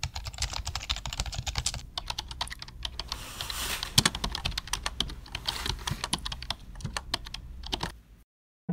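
Typing on a computer keyboard: a quick, irregular run of key clicks that stops abruptly just before the end.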